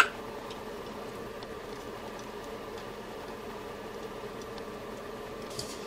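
A single sharp click at the start, then a steady, faint background hum of room noise.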